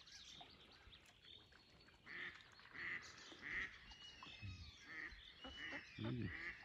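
Live decoy hen duck calling faintly on open water: a series of short quacks repeating a little under a second apart, calling for a drake.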